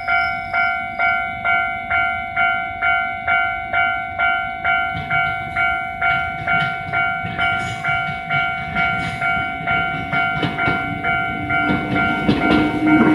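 Level crossing warning bell ringing about twice a second, each stroke ringing on. Partway through, a train's rumble and wheel clatter come in and grow louder toward the end as it nears and runs over the crossing.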